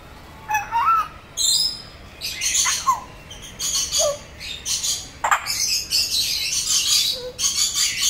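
African grey parrot vocalizing: a short whistle that rises and falls about half a second in, a few quick downward-sweeping calls, then a thickening run of harsh, rasping squawks through the second half.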